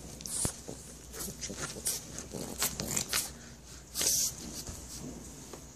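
French bulldog puppy wrestling a plush heart toy: irregular scratchy rustling of the fabric and scuffing of paws on carpet, loudest about four seconds in.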